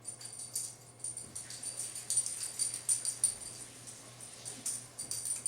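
A dog's metal collar tags jingling and clinking in quick, irregular runs as the dog moves about and eats, easing off briefly a little past the middle.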